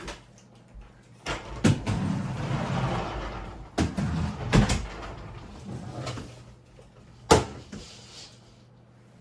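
A string of household knocks and clunks, the sharpest near the middle and again near the end, with a rustling stretch about two seconds in, over a low steady hum.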